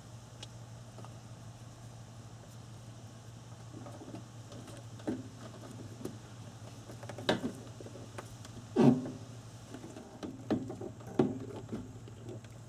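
Scattered knocks and clicks of parts being handled as a rubber gasket is fitted around the fuel tank opening and the plastic fuel pump assembly is lifted into place, over a steady low hum. The loudest knocks come about seven and nine seconds in.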